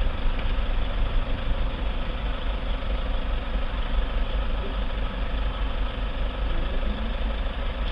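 Car idling in stopped traffic: a steady low engine drone with cabin hum, heard inside the car through a dashcam microphone.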